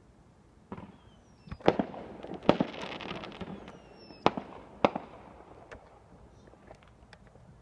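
Fireworks going off: a handful of sharp bangs over about four seconds, with crackling between them and a couple of short falling whistles, then a few fainter pops.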